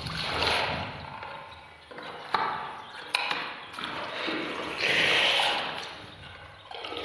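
Bamboo pole knocking twice against a bamboo raft being poled through floodwater, two sharp wooden knocks about a second apart, between soft swells of rushing noise.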